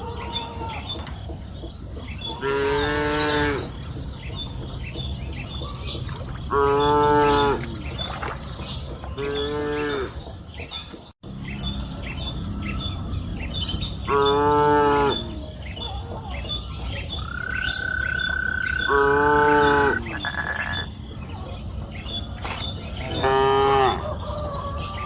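Cattle mooing, about six separate moos spread out, each lasting around a second.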